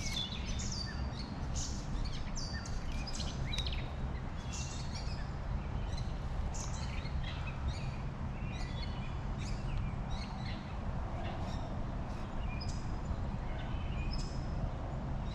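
Songbirds chirping and calling many times, short high notes coming one after another, over a steady low background rush.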